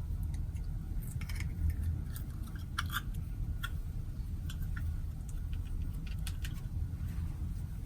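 Clear slime being handled and mixed, giving scattered small sticky clicks and pops over a steady low hum.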